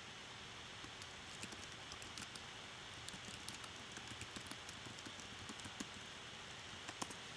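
Computer keyboard typing: quick, light key clicks over a steady faint hiss, with a couple of slightly louder clicks near the end.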